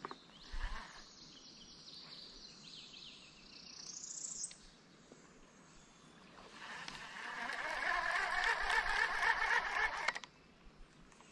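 Baitcasting reel being cranked on a retrieve: a dense whirring for about four seconds in the second half that stops abruptly. Earlier there is a faint rising whistle.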